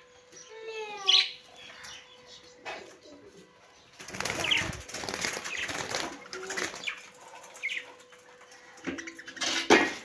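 Budgerigars flapping their wings as they fly about their cage, in a burst about four seconds in and again near the end, with a few short chirps.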